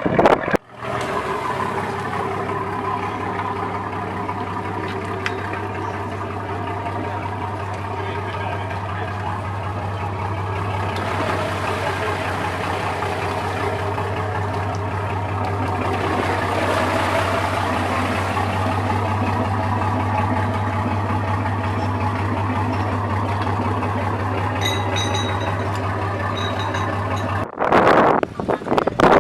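Boat engine idling steadily, a low, even hum. It cuts in shortly after the start and stops abruptly near the end.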